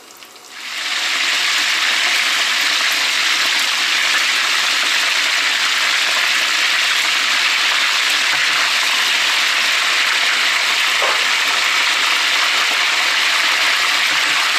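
Breadcrumb-coated meatballs deep-frying in hot oil in a stainless steel pan, giving a loud, steady sizzle. The sizzle comes in suddenly under a second in.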